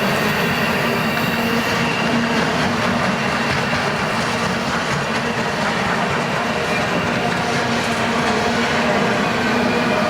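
Freight train cars rolling past on the rails: a steady rumble and rattle of wheels on track, with a faint thin wheel squeal in the first couple of seconds.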